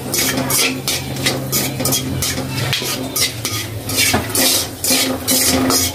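A metal spatula scrapes and stirs whole spices (bay leaves, cinnamon, cardamom) in hot oil in a black kadai, roughly two strokes a second, with the oil sizzling underneath.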